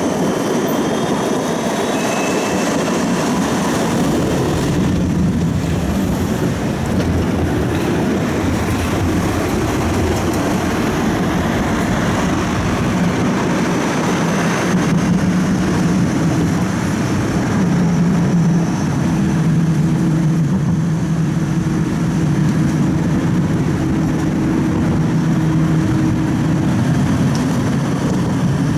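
Siemens Combino tram running along its line, heard from inside the car: a steady rumble of wheels on rails and running noise, with a low steady motor hum coming in about halfway through.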